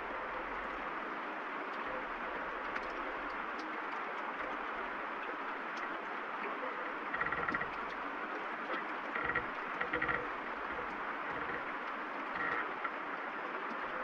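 Steady rain falling, with scattered faint crackles from a wood fire and a few brief soft creaks about halfway through and again near the end.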